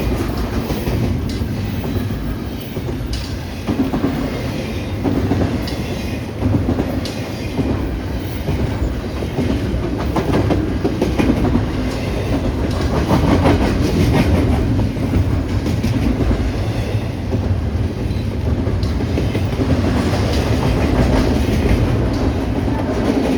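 BNSF freight cars rolling past close by: a loud, steady rumble with a continual clicking of wheels over rail joints, no horn.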